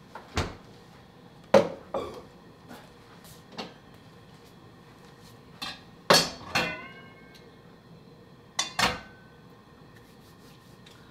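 Dishes and utensils knocking and clinking, about eight separate sharp knocks; one about six seconds in rings briefly like a struck plate or bowl.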